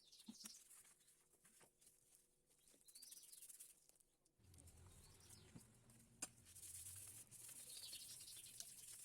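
Near silence: faint room tone with scattered small clicks, and a low hum that comes in about halfway through.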